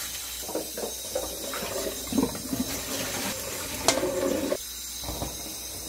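Cold water running from a kitchen tap onto freshly boiled quail eggs in a stainless steel bowl in a steel sink, cooling them after boiling. The water then splashes as it is poured off through a mesh strainer, with a sharp clink of metal about four seconds in.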